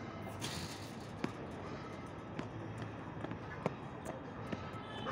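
Tennis ball struck by rackets and bouncing on the hard court during a rally: about four sharp pops, roughly a second apart.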